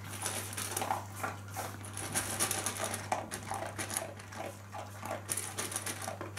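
A labradoodle eating dry kibble from a stainless-steel bowl: quick, irregular crunching and chewing.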